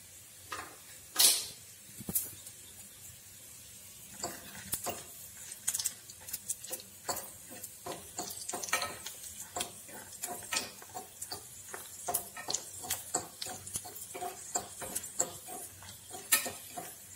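Dried red chillies frying in sesame oil in a small pan, with a light sizzle and a fork clicking and scraping against the pan as the chillies are turned. There is a sharp knock a little over a second in, and dense quick clicks from about four seconds in.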